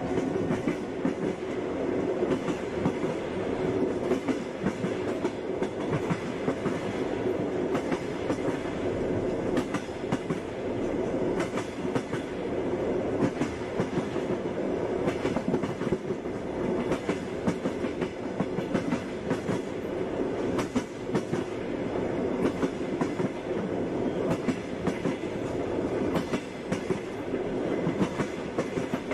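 Passenger train running at speed, its wheels clattering over the rail joints: frequent sharp knocks over a steady rumble.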